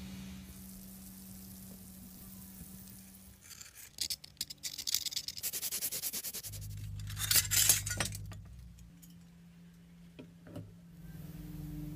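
A parts-cleaning bath humming steadily while bubbles fizz around soaking metal parts. From about four seconds in come brisk rubbing and scratching with light clinks, loudest around seven to eight seconds, as a cloth wipes a rusty metal part; the hum returns near the end.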